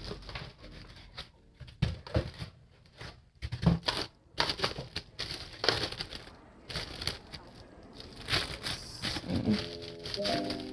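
Packaging being crinkled and rustled by hand, with irregular clicks and knocks, as the cables and parts of a new label printer are unwrapped and handled.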